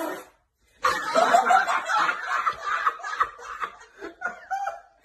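Hearty laughter, a short burst at the start and then a long run of laughing from about a second in that breaks into separate puffs near the end.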